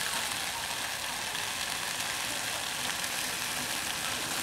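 Steady sizzling of sliced jackfruit seeds, onion and chillies frying in coconut oil in a clay pot.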